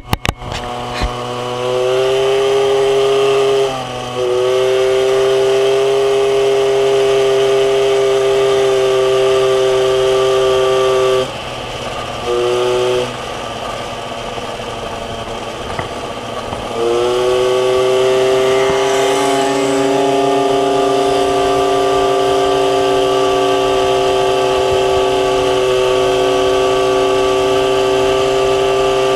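MBK 51 Magnum moped's two-stroke 50 cc single-cylinder engine running hard at high, steady revs, with a short dip about four seconds in. Around eleven seconds in the throttle closes and the note falls to a low idle-like sound, apart from one brief blip. Near seventeen seconds in it opens up again, the pitch rising and then holding steady.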